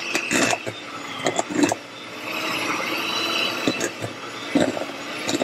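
Electric hand mixer running steadily, its beaters working thick oatmeal cookie dough in a stainless steel bowl, with irregular sharp knocks as the beaters strike the bowl.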